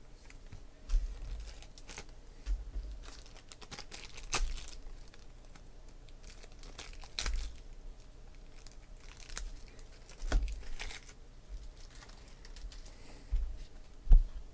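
Trading cards being handled and shuffled by hand, with crinkling and rustling and scattered short taps and clicks as the cards are squared up; the sharpest tap comes near the end.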